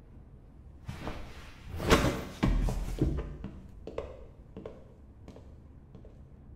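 A sharp rush of noise and a heavy thud about two seconds in, then boot footsteps on a stage floor, about two steps a second, growing fainter as the walker leaves.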